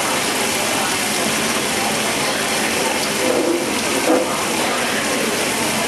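Food sizzling on a hot cast-iron teppanyaki plate, a steady hiss, with a light knock about four seconds in as a bowl is set down on the tray.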